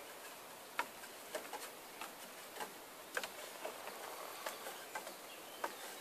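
Light, irregular knocks of a child climbing down a wooden ladder, her hands and feet on the rungs, over a faint steady outdoor hiss.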